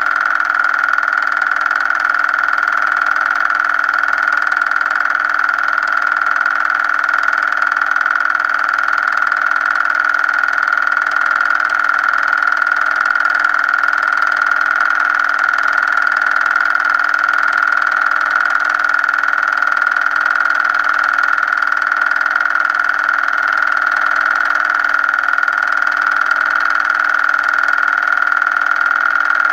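Steady, unchanging mechanical whir of a film projector running, with a strong high-mid hum and no other events.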